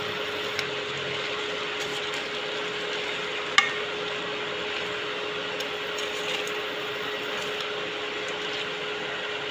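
A spatula stirring sabudana khichdi in a pan, with one sharp knock of the spatula against the pan about three and a half seconds in, over a steady hiss and a faint low hum.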